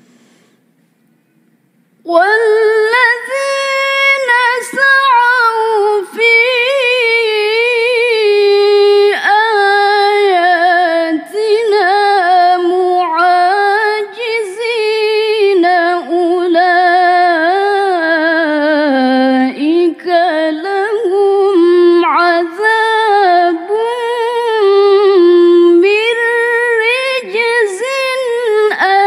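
A woman reciting the Qur'an in tilawah style: one unaccompanied voice in long, ornamented melodic phrases with wavering held notes. It begins about two seconds in, after a short pause for breath.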